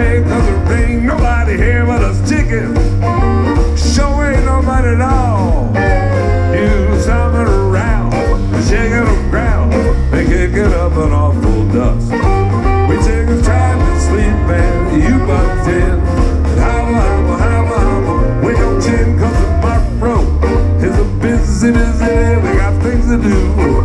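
Western swing band playing live through a PA during an instrumental break between verses: a steady bass and rhythm under a lead line that slides up and down in pitch.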